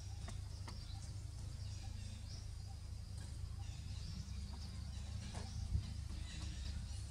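Outdoor ambience: a steady low rumble with faint bird chirps and insect sounds, and a brief thump about six seconds in.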